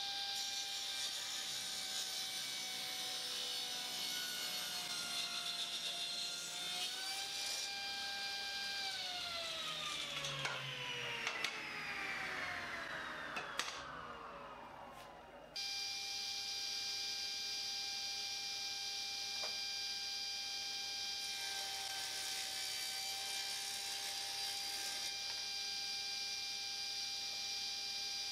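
Table saw running with a steady whine while crosscutting a thick celery top pine board, with a sawing hiss over the motor; the pitch sags a little under load. The blade then winds down in a long falling whine, and abruptly it is back at full speed, running steadily.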